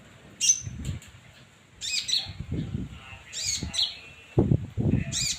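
A songbird giving short, sharp chirping calls that sweep up and down in pitch, about one every second and a half. Between the calls come low thumps and rustles.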